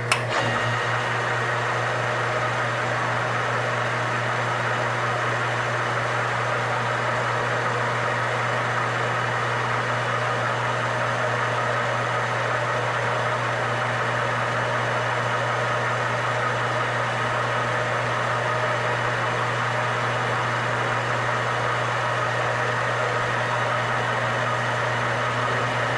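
Metal lathe running steadily with the spindle turning a threaded workpiece: a constant motor and gearing hum, with a brief click right at the start.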